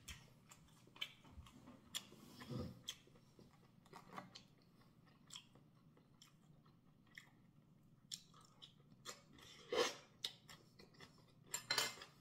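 Faint chewing of a mouthful of cooked corn, among scattered light clicks and knocks of a spoon against the dish.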